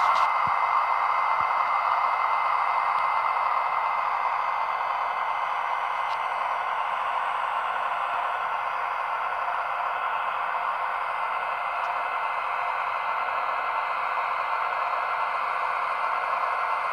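Sound decoder in an H0-scale model of an FS E402B electric locomotive playing its recorded running sound through the model's small loudspeaker. The sound is a steady rush of traction-motor cooling fans, with a faint high whine that fades over the first few seconds, while the model rolls slowly along the track.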